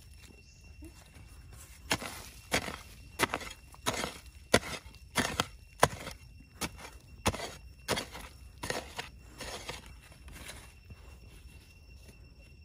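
A digging tool chopping into sandy, dry soil in a run of about fifteen dull strikes, one to two a second, stopping about two seconds before the end. Clods of earth are thrown loose with each blow.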